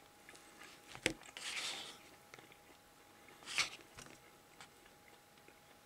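Quiet eating sounds: soft chewing with wooden chopsticks clicking and scraping against rice and a plastic bento tray, including one sharp click about a second in.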